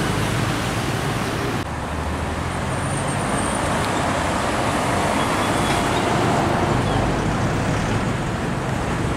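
Expressway traffic: heavy diesel trucks and cars passing in a steady rush of tyre and engine noise, with low truck engines droning underneath. About two seconds in, the high hiss drops away suddenly.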